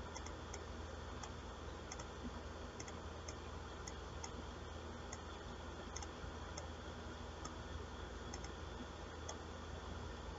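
Computer mouse clicking, a long irregular run of faint short clicks as residues are picked one after another, over a steady low hum and hiss.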